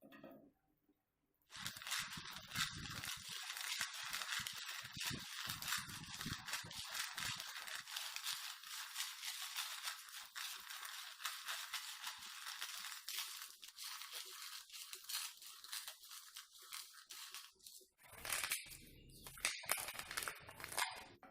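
Dry, crackling rustle of roasted peanuts being rubbed and crushed by hand. It starts about a second and a half in and stops near the end, where a few louder separate knocks and rustles follow.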